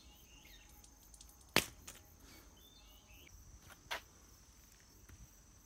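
Faint rural ambience: a steady high-pitched insect drone with a few faint chirps, broken by two sharp clicks, about a second and a half and about four seconds in.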